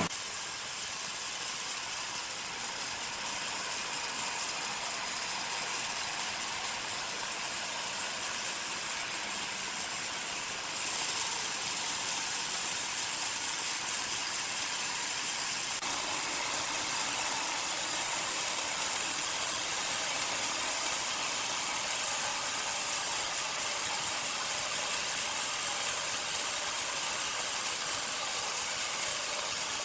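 Sawmill machinery running: steady mechanical noise with a strong hiss. It steps louder about eleven seconds in and shifts in character again around sixteen seconds.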